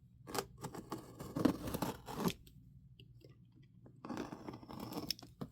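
A cardboard shipping box and its packing being handled and opened by hand: irregular crinkling and crunching with small clicks, in one spell over the first two seconds or so and another from about four seconds in.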